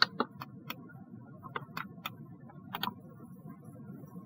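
Computer mouse clicking: about ten sharp, irregularly spaced clicks over a faint steady hum.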